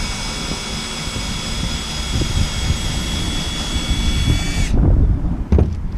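Power drill motor whining steadily as it backs a tapered tap out of a freshly tapped hole, then stopping abruptly near the end; a single knock follows shortly after.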